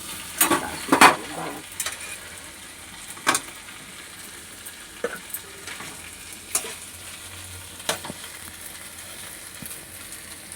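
Vegetables sizzling in a pan as a spatula stirs them, with sharp scrapes and knocks of the utensil against the pan, several close together at first and then every second or two.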